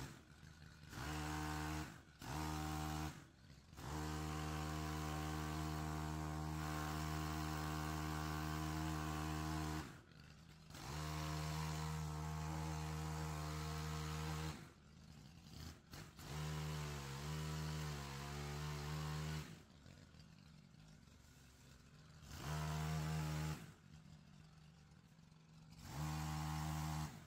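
Petrol pole saw engine revving to full throttle in repeated bursts, the longest about six seconds, falling back to idle between them, as branches are cut overhead. About two-thirds of the way through, the engine pitch wavers briefly.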